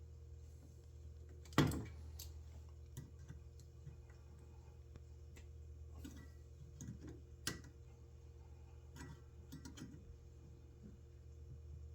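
Scattered light clicks and taps of hand tools and small metal parts as a disassembled belt sander motor is worked on, with one louder knock about one and a half seconds in, over a steady low hum.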